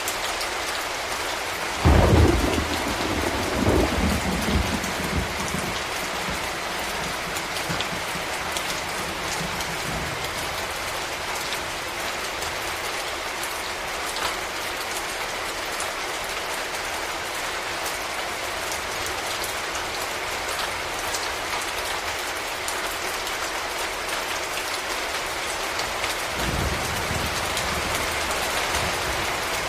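Steady rain hissing down, with a sudden clap of thunder about two seconds in that rumbles away over a few seconds, and a second, fainter low rumble of thunder building near the end.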